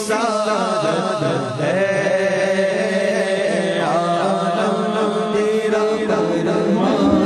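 Islamic devotional chanting: a voice singing long, wavering, drawn-out notes, with music behind it.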